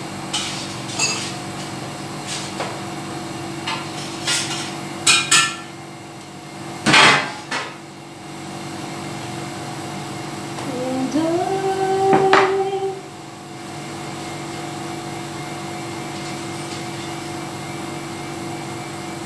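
Kitchen clatter of pans and utensils: scattered sharp knocks and clinks, one louder and longer about seven seconds in, over a steady hum. Around eleven seconds a short tone rises and holds for about two seconds.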